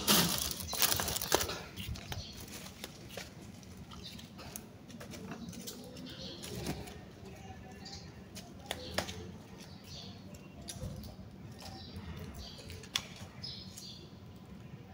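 Rustling and scattered light clicks of garden litter being picked up by hand and a plastic bag being handled, starting with a loud burst of rustling. Faint bird chirps come in near the end.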